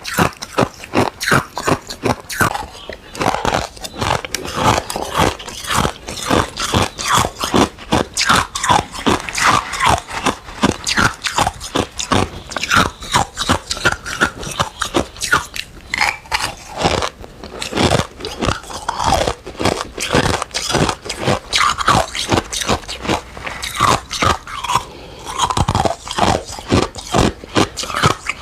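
Close-miked crunching of ice cubes, bitten and chewed in quick, continuous cracks and crackles.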